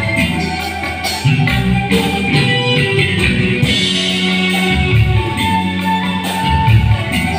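Live band playing an instrumental piece: electric guitar and bass guitar over keyboards and drums, with a steady beat.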